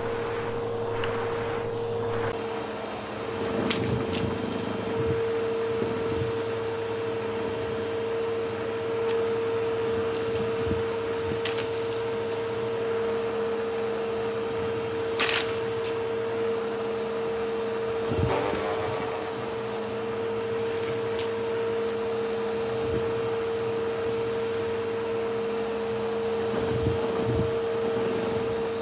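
Bissell vacuum cleaner running with a steady motor whine. A couple of seconds in, the low hum drops and a faint high whistle comes in. Occasional sharp clicks come from debris being sucked up.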